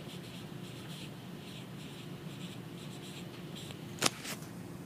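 Stylus writing on a tablet screen: a run of soft, scratchy handwriting strokes, with a sharp click about four seconds in. A steady low hum sits underneath.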